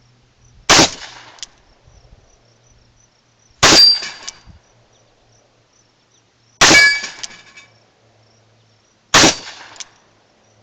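Four shots from a Smith & Wesson .357 Magnum revolver firing medium-hot handloads, spaced about three seconds apart, each with a brief ringing tail.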